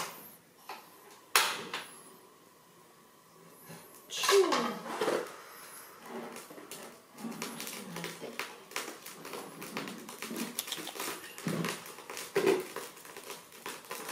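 Kitchen handling sounds at a table set for stir-frying: a few sharp knocks of utensils and dishes, a short cry with a falling pitch about four seconds in, then a run of fast, light ticking and clatter through the second half.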